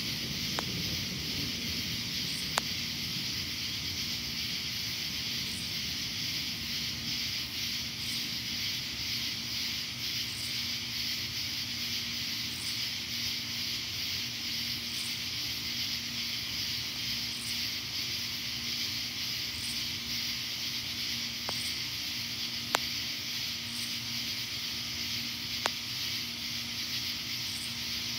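Steady high hiss of a night insect chorus, with a faint high chirp repeating every two to three seconds and a few sharp clicks.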